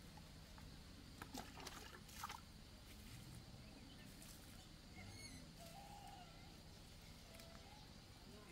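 Near silence: faint outdoor ambience, with a few soft rustling noises about a second in and faint bird chirps about five seconds in.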